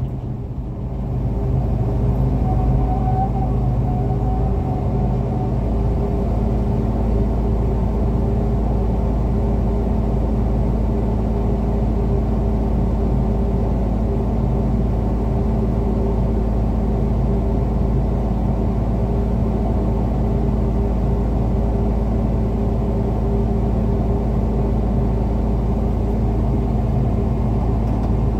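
A large vehicle engine running steadily at idle, a constant low hum with a few steady tones, heard from inside a vehicle cab.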